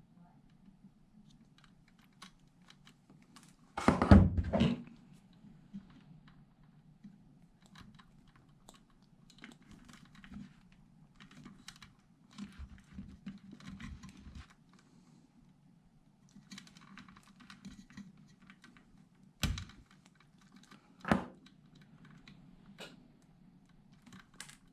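Hand tools working on wire ends at a workbench: many small clicks and scrapes as the wire is stripped and cleaned, with a loud clatter about four seconds in and two sharp clicks near the end, over a steady low hum.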